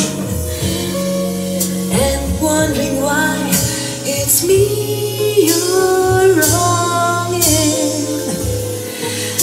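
Music with singing played back over Tannoy Eclipse loudspeakers driven by an Onkyo Integra A-9711 amplifier, heard in the listening room: a sung melody over steady bass notes.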